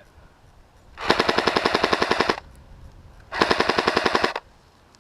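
Airsoft electric gun (AEG) firing two full-auto bursts, a rapid even rattle of shots: the first about a second and a half long, the second about a second.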